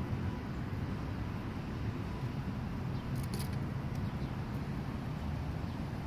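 Steady low outdoor rumble, with a few faint sharp ticks about halfway through.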